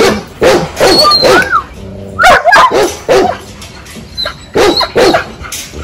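Pit bull barking in a rapid string of short, sharp barks, about two a second. It is the defensive barking of a frightened dog warning off a person at its kennel.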